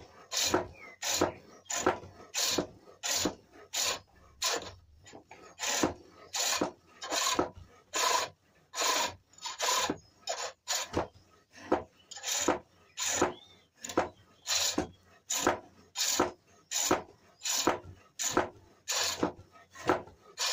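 A pole lathe turning a cherrywood bowl against a hand-held steel turning tool as the inside is hollowed out: a steady rhythm of short scraping cuts, about three every two seconds, with quiet gaps between. Each cut falls on the treadle's down-stroke, and the gap is the pole springing the work back.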